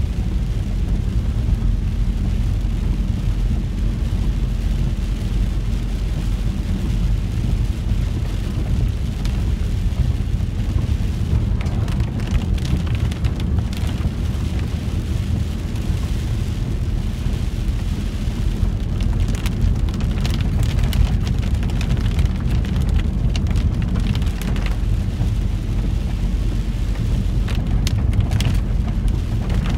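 Inside a VW T4 campervan driving in the rain: a steady low rumble of engine and tyres on the wet road, with raindrops ticking on the windscreen and roof. The drops come thicker in the second half.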